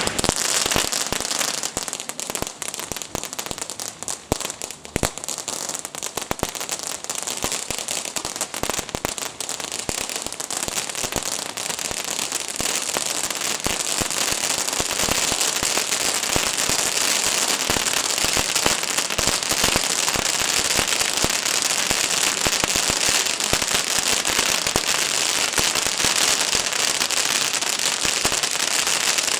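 Fireworks crackling: a rapid run of sharp pops and crackles, uneven at first, that thickens into a dense, continuous crackle about twelve seconds in.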